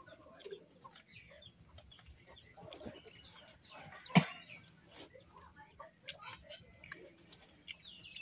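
Chickens clucking and small birds chirping, with soft clicks of hands working rice on steel plates. A single sharp knock about halfway through is the loudest sound.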